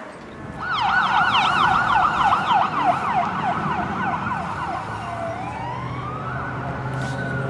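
An emergency vehicle's electronic siren sounding a fast yelp, about four rising-and-falling sweeps a second, then switching about five seconds in to a slow wail that climbs and starts to fall.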